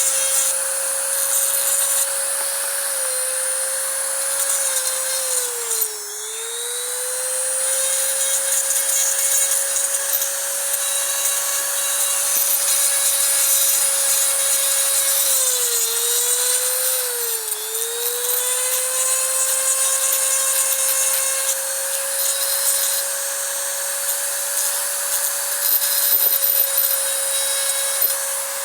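Small electric power tool running at a steady pitch with rubbing and grinding noise over it. It slows briefly as it is pressed into the work about six seconds in, and twice more between about sixteen and eighteen seconds.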